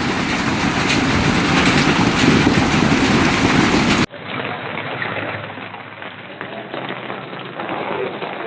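Heavy rain pelting down on hard surfaces, a dense hiss with many small pattering hits. About four seconds in it drops suddenly and carries on quieter and duller.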